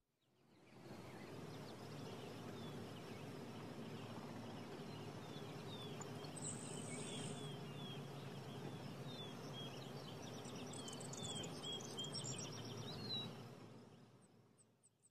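Faint outdoor ambience: a steady low rush with birds chirping, a run of short falling chirps, and a brief high steady note about six seconds in. It fades in at the start and fades out near the end.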